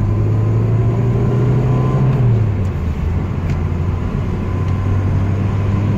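1986 Alfa Romeo Spider Veloce's 2-litre twin-cam four-cylinder engine pulling the car along a road, heard from the driver's seat over road noise. Its note climbs slightly for about two seconds, then drops and holds steady.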